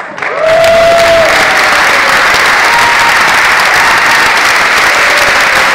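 Audience applauding in a hall, starting just after the opening and holding loud and steady.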